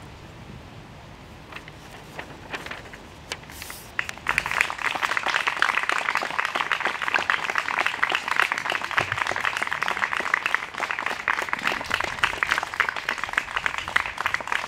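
Audience applause, many hands clapping, starting suddenly about four seconds in after a few quiet seconds with scattered small clicks.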